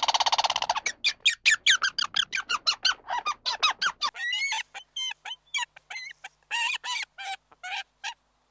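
Birds calling: a dense run of quick repeated calls, about four a second, then, after a cut about four seconds in, a sparser series of separate calls.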